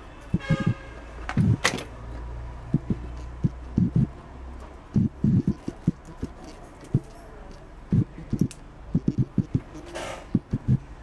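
Irregular soft knocks and thumps from hands working small leather pieces at a workbench, with a brief squeak about half a second in, a sharp click soon after, and a short hiss near the end.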